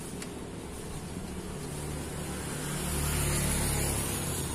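A motor vehicle passing by, its engine rumble and tyre hiss swelling to a peak about three seconds in and then easing off.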